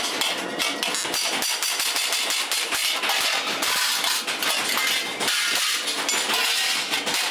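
Small hand hammer striking flat steel shovel blanks on a steel bar: a quick, uneven run of sharp metal-on-metal strikes.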